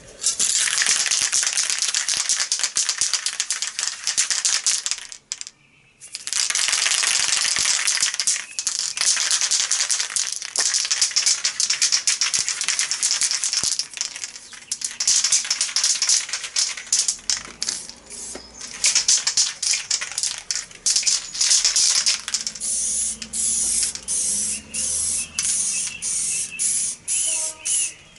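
Aerosol spray paint can spraying in long hisses, with a short break about five seconds in. Near the end it gives many short bursts.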